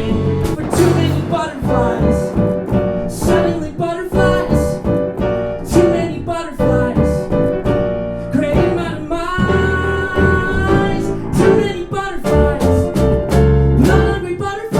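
Live band of piano, bass and drum kit playing a song with a regular beat and repeated piano chords over the bass.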